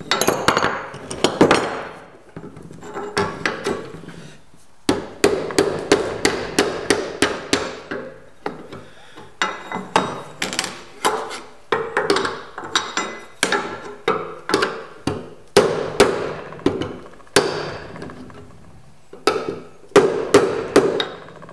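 Hammer striking a hand-held tool against the edge of a sheet-steel repair panel clamped in a wooden forming buck, tapping the flange over to shape it. Quick runs of sharp metallic taps, several a second, each ringing briefly, with short pauses between runs.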